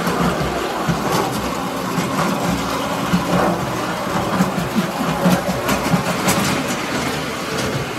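Toy electric trolley running on tinplate track: its motor hums steadily while the wheels rattle over the rails, with scattered light clicks.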